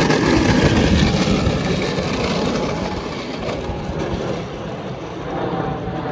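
Electric go-kart with a 48 V 2000 W motor and chain drive pulling away over rough asphalt: a steady rolling noise from its small wheels and drive, loudest as it sets off and easing as it moves away.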